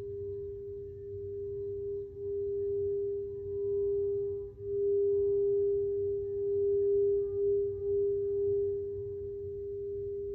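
A singing bowl sounding one long held tone that swells and dips in loudness, over a low rumble.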